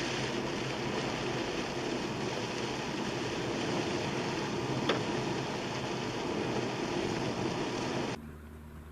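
Small hail falling with a steady hiss and patter, with a single click about halfway through. It cuts off abruptly near the end.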